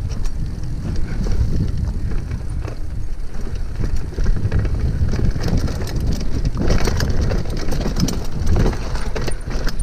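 Mountain bike riding fast down a dirt woodland trail: a steady low rumble of tyres and wind on the microphone, with frequent rattles and knocks as the bike runs over bumps, thickest from about seven to nine seconds in.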